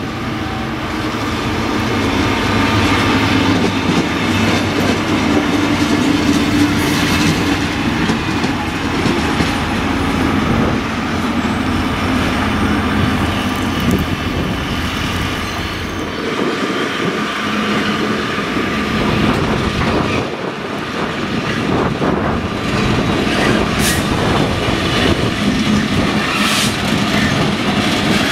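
Diesel locomotives moving through a depot yard: a DB class 363 shunter is moving a class 245 and two class 218s, with the engines running steadily and the wheels clacking over the rail joints.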